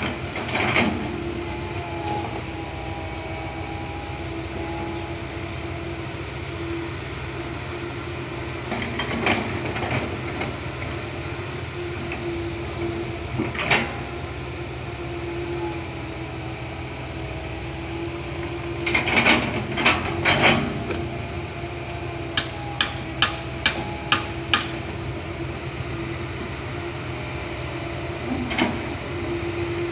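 Komatsu PC160 hydraulic excavator's diesel engine running steadily under load, with a held hydraulic whine. Sharp knocks come every few seconds, loudest about two-thirds through, followed by a quick run of about six sharp clicks.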